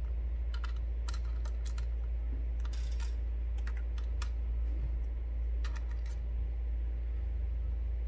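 Small, irregular metal clicks and ticks from a precision screwdriver and a tiny screw being seated and turned in a laptop SSD's mounting, over a steady low hum.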